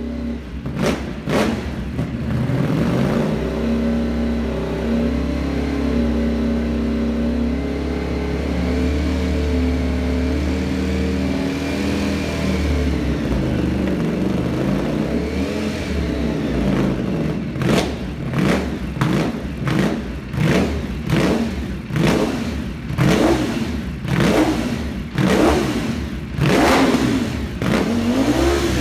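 Ducati Panigale V4 motorcycle's V4 engine running through its exhaust: a couple of quick throttle blips, then a steady idle. In the last ten seconds it is revved in about a dozen sharp blips, roughly one a second.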